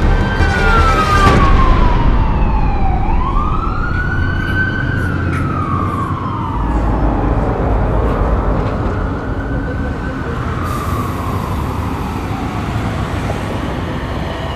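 A siren wailing, its pitch sweeping slowly down and up about every five seconds, over a low rumble.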